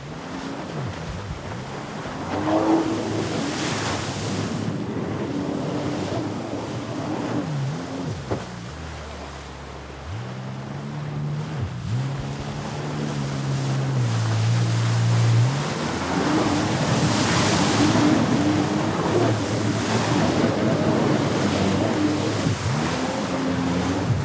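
Jet ski engine running on the water, its pitch rising and falling as the throttle is worked, over the rush of water spray. It eases off and runs lower near the middle, then speeds up again.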